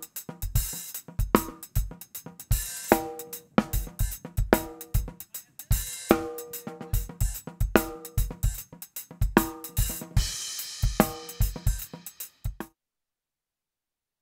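Drum-driven music with a steady kick-drum beat, snare and cymbals. It cuts off abruptly near the end, leaving dead silence.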